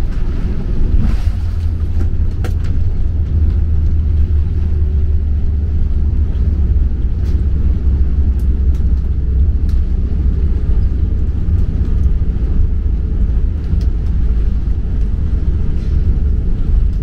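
Loud, steady low rumble inside the cabin of a Boeing 747-8 as it lands and rolls out on the runway, with a few faint clicks and knocks near the start.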